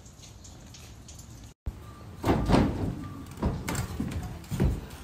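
Manual wheelchair pushed down a wooden ramp onto a plank floor, with footsteps on the boards: a run of knocks and rattles starting about a second and a half in, loudest from about two seconds on.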